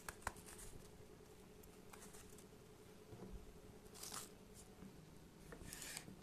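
Faint hand-handling sounds as the seeds are pulled out of a red bell pepper over a plastic bag: a few brief soft rustles and crackles, the clearest two near the end, over a faint steady hum.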